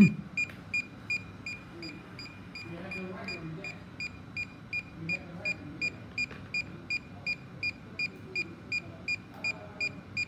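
DJI Mavic Air 2 remote controller beeping in linking mode: short high beeps about three times a second, pausing for about two seconds near the start, as it waits to pair with an aircraft that does not link. A single knock at the very start.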